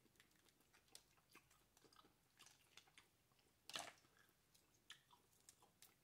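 Faint clicks and crackles of boiled crawfish shells being peeled apart by hand, with quiet chewing, and one louder snap a little under four seconds in.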